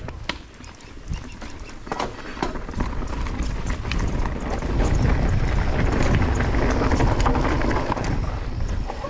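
Mountain bike setting off down a rocky trail: scattered clicks and rattles at first, then tyre rumble and wind on the camera microphone building from about three seconds in and staying loud.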